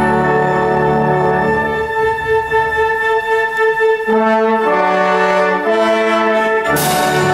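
A college concert band of brass and woodwinds playing. A full held chord thins out after about two seconds, leaving a few upper instruments moving through sustained notes. The whole band comes back in with a sharp attack near the end.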